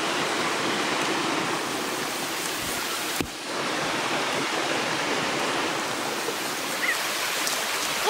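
Shallow mountain stream running over rocks: a steady rush of water, with one short click a little over three seconds in.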